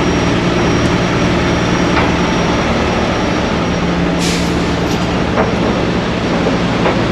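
Heavy rotator tow truck's diesel engine running steadily close by, with a short hiss of air about four seconds in.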